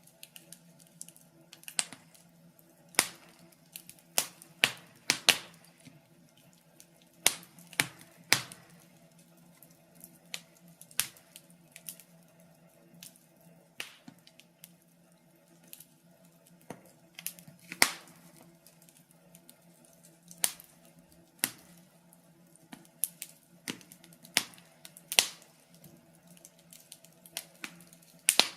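Wood fire crackling in a fireplace: irregular sharp pops and snaps, a few every second and uneven in loudness, over a faint steady hum.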